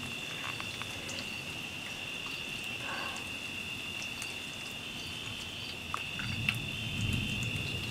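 Crickets trilling steadily in a high, unbroken tone. A soft low rumble near the end is distant thunder.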